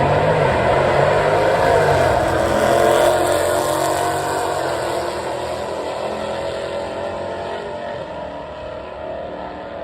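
Drag car's engine at full throttle down the strip, loud at first and fading steadily as it pulls away.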